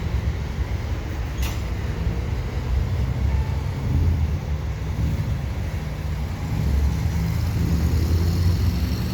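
Mixed freight train rolling slowly past: a steady low rumble, with one brief click about a second and a half in and faint high tones near the end.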